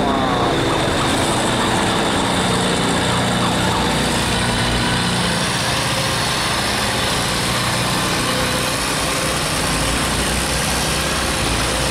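Diesel engines of riverboats and barges running, with a steady low engine hum clearest in the first half, over a continuous wash of churning water.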